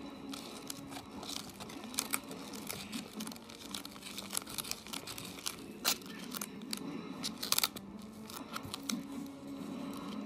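Plastic chopsticks stirring and whipping sticky natto in a polystyrene tray: irregular clicks and scrapes against the tray, with a quick cluster of sharper clicks about seven and a half seconds in.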